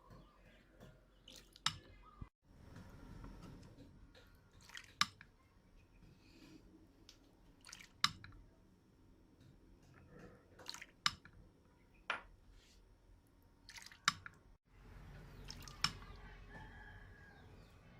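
Scattered sharp clicks and taps, about one every one to three seconds, over a faint low hum.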